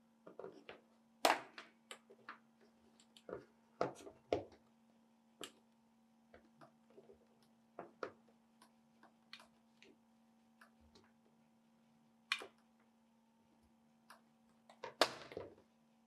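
PVC pipe and plastic fittings being handled and worked on a cutting mat: scattered irregular clicks and taps, with a few louder knocks, over a faint steady hum.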